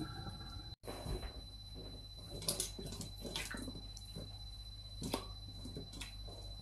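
Quiet kitchen handling sounds: a few light clicks and knocks as vegetables are moved about in a stainless steel bowl, over a faint steady hum.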